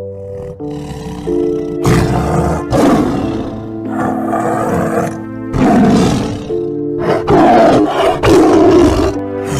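A big cat roaring and growling in a series of about six rough calls, each under a second, over background music with steady held chords.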